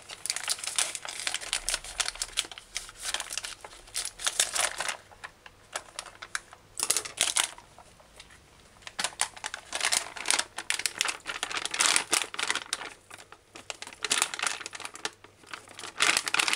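Plastic bag crinkling as it is cut open with kitchen scissors and handled, in several crackly bursts with short pauses between them.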